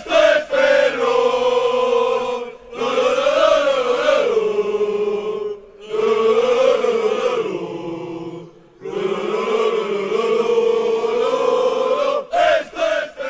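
Choral singing in long held, wavering phrases: four of them, each about three seconds, parted by short breaths, then a few shorter notes near the end.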